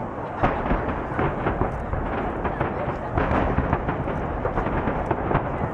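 Many aerial firework shells bursting in quick succession, heard from a distance: overlapping booms merge into a continuous rolling rumble, with sharper bangs standing out throughout.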